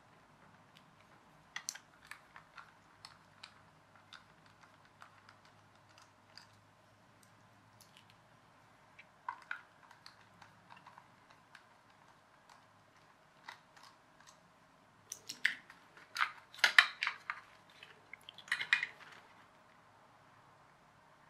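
Small clicks and taps of a plastic toy RC car being handled and unscrewed, with a louder run of plastic clicking and clattering near the end as its parts come apart.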